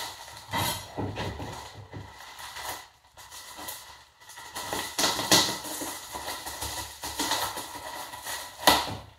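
Plastic mailer bag rustling and crinkling as it is handled and opened, in irregular bursts with short pauses; the sharpest come a little after five seconds and near the end.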